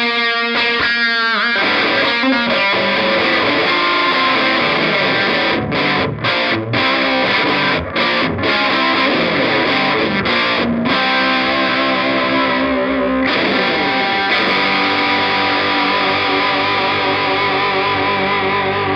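Overdriven electric guitar (PRS DGT) played through the VS Audio Platinum, a Marshall Silver Jubilee-style drive pedal, into a Marshall Origin 20 amp. Choppy stabbed chords open, followed by busy riffing with a few short stops, then notes left ringing out over the last several seconds.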